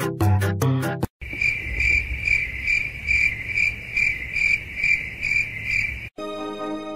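Cricket chirping, a steady high pulsed chirp about two and a half times a second over a faint hiss. It comes in after a short stretch of rhythmic music that cuts off about a second in, and gives way to music again near the end.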